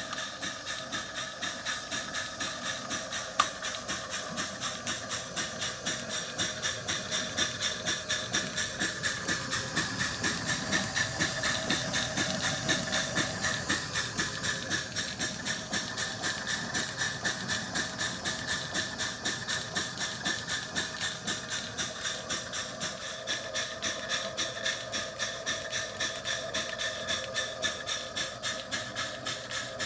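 Maxitrak miniature butane-fired live-steam Case traction engine working hard under load from a belted Baker fan: a rapid, even exhaust bark over a steady steam hiss.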